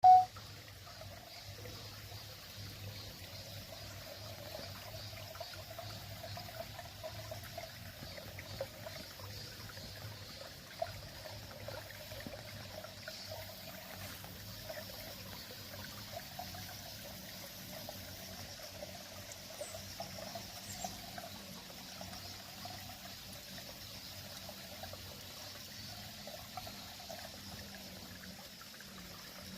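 A small forest stream trickling and burbling steadily. A brief click at the very start.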